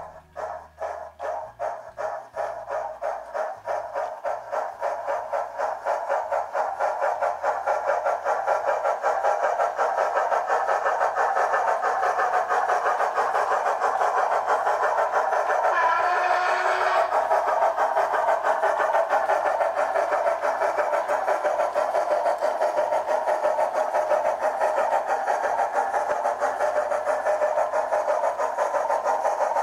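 Digital sound decoder in an O gauge model of an LMS Stanier Black 5 4-6-0 steam locomotive, playing exhaust chuffs as it starts away with its train. The beats start slow and quiet, then quicken and grow louder over the first several seconds as the train gathers speed, settling into fast, steady chuffing.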